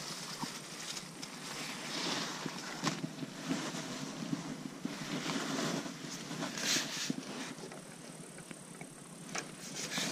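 Wind buffeting the microphone, with rustling and scattered light knocks from handling.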